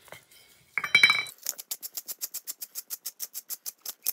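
A fork clinks against a stainless steel mixing bowl about a second in, with a short metallic ring. It then whisks rapidly through dry almond flour and psyllium husk, scraping the bowl in even strokes about six times a second.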